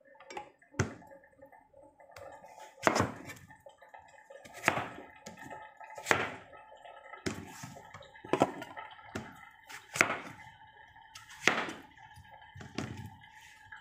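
Large kitchen knife cutting through papaya and knocking on the cutting board: about ten sharp knocks, a second or two apart, over a faint steady hum.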